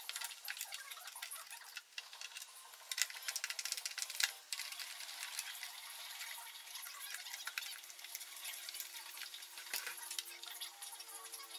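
Screwdriver clicking and scraping on small screws and the plastic casing of an IKEA SY sewing machine being taken apart, with the casing knocked and handled. The clicking is thickest about three to four seconds in.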